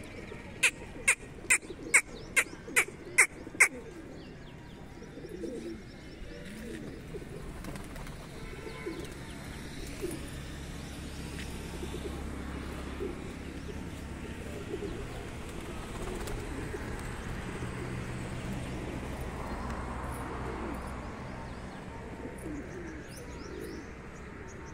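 Pigeons cooing, low and repeated. Starting about half a second in, seven short, sharp, high chirps come in quick succession, a little over two a second; these are the loudest sounds here.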